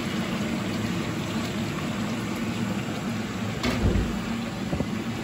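Pork slices deep-frying in hot oil in a stainless steel pot, a steady crackling sizzle, with a single knock a little past the middle.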